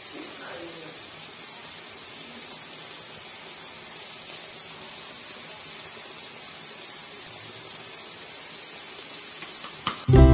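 Chopped onion and tomato frying in oil in an aluminium kadai, a faint steady sizzle as the masala cooks to the stage where the oil separates. Guitar music comes in loudly right at the end.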